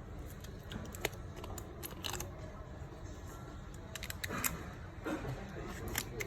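Small clicks, taps and brief scrapes of smartphone parts and tools being handled on a workbench as a phone battery is fitted back in, over a steady low background hum.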